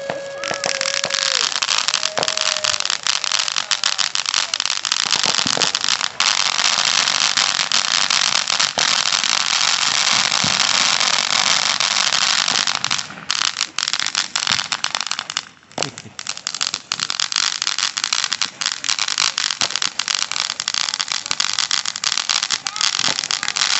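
Fireworks crackling: a long, dense run of rapid pops and crackles that falters briefly twice, about 13 and 15 seconds in.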